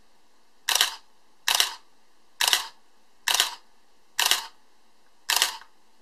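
Minolta Maxxum 700si film SLR firing its mirror and shutter six times, roughly one shot a second, each a short, sharp mechanical clack.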